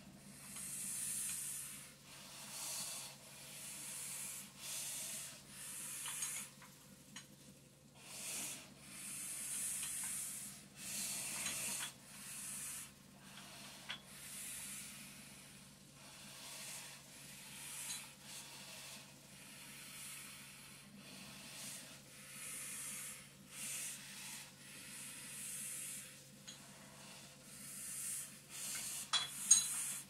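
Heavy rhythmic breathing through a breathing-resistance endurance mask, each breath a hissing rush of air about every one and a half to two seconds, over the steady low hum of a running vibration plate. A few sharp clicks near the end.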